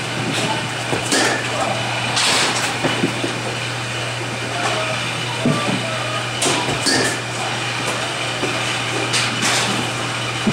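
Softball bat cracking against pitched balls three times, a few seconds apart, over a steady low hum of machinery.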